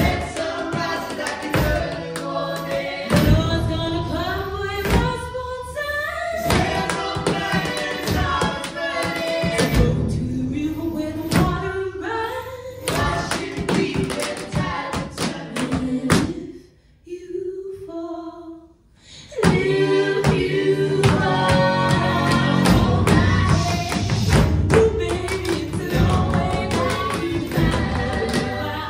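Tap shoes striking the stage floor in quick rhythms over a recorded song with singing. A little past the middle, the music drops away to a few faint notes for about three seconds, then comes back in full.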